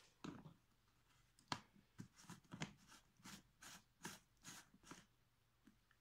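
Black plastic hose cuff being pushed and twisted into the hose inlet of a Numatic Henry HVR200 vacuum cleaner: a run of faint plastic clicks and scrapes, about a dozen, ending about a second before the end.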